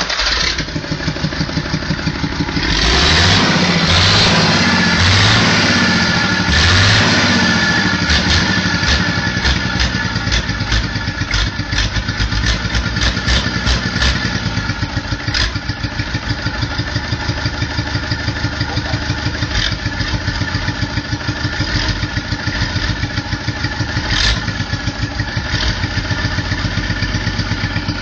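Bare Universal tractor engine running on a test stand out of its chassis. It is revved up and back down about four times in the first several seconds, then runs steadily with a sharp, irregular clatter.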